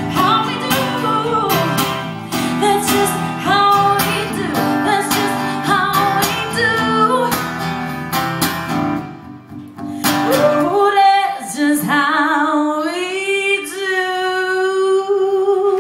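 A female singer sings live over a strummed acoustic guitar. About ten seconds in the guitar stops and she holds one long note alone, rising in pitch and then held with vibrato.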